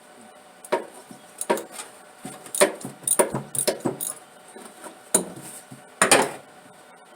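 Metal hand tools clinking and knocking in a string of irregular sharp clanks, the loudest about two and a half seconds in and again near the end.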